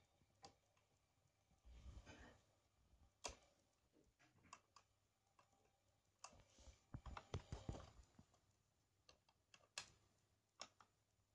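Faint mechanical clicks from a vintage record changer's mechanism, with a quick run of clicks and knocks about six to eight seconds in as the control knob is turned and the tone arm lifts and swings back to its rest. No music is heard from the record.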